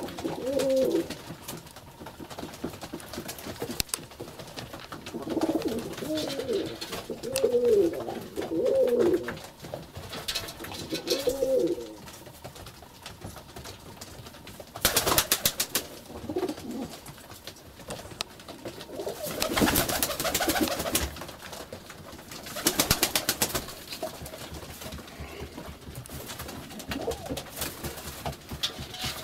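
Domestic tumbler pigeons cooing in a small enclosed loft, with several low warbling coo phrases in the first half. Then come three short bursts of rapid wing flapping, louder than the cooing.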